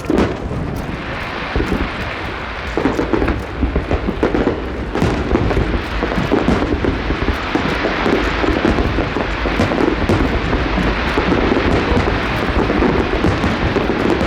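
Dense fireworks barrage: overlapping booms merge into a continuous rumble, with many crackling bursts throughout.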